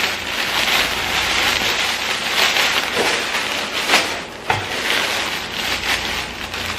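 Rustling and crinkling of the newly unboxed Santa hats and their packaging being handled, with a few sharper clicks about three and four seconds in.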